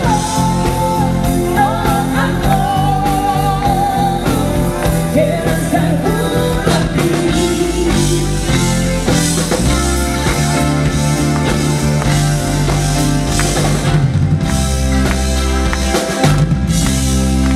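Live rock band playing, with electric guitars, keyboard and drum kit. A woman sings the lead for the first several seconds, and the band plays on without her after that.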